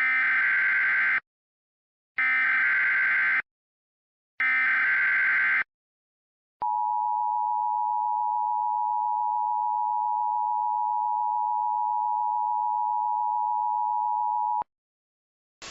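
Emergency Alert System SAME header: three bursts of buzzing data tones, each about a second long, announcing a tornado warning. About a second later comes the EAS two-tone attention signal, a steady dual tone held for about eight seconds.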